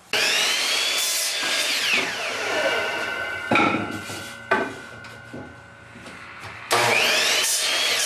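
Electric chop saw (miter saw) cutting cedar strips to length. The motor spins up with a rising whine and the blade cuts through the wood, then winds down. There are a couple of knocks as the next piece is set against the stop, and a second cut starts near the end.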